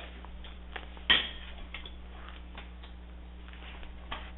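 A fork clinking against a bowl of beaten egg: scattered light clinks, the sharpest about a second in.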